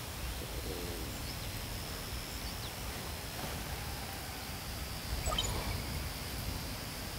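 Wind buffeting the microphone as a steady low rumble, with birds calling a few times, briefly around a second in and again about five seconds in.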